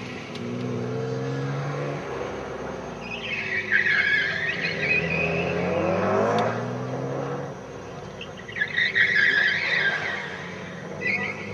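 A 2002 Subaru Impreza WRX STI's turbocharged flat-four engine revving up and down under hard driving, with the tyres squealing through the corners: a long squeal about three seconds in, another about eight and a half seconds in, and a short one near the end.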